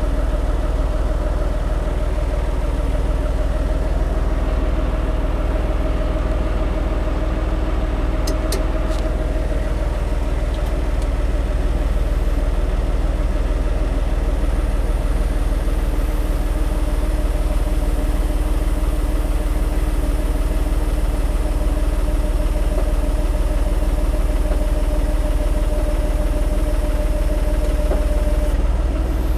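John Deere tractor's diesel engine running steadily with a low rumble as the tractor creeps forward and works its front loader.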